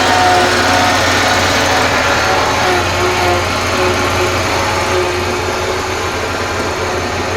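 Commercial riding lawn mower's engine running steadily, with a fainter whine that comes and goes above it.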